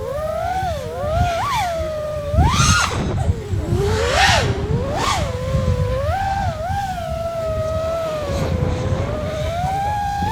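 Electric motors of a 5-inch FPV freestyle quadcopter whining, the pitch sliding up and down with throttle and jumping sharply in several quick punches, over a low rumble of wind noise.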